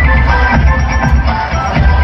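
Loud dance music with a heavy, pulsing bass beat, played through stage loudspeakers for a dance performance.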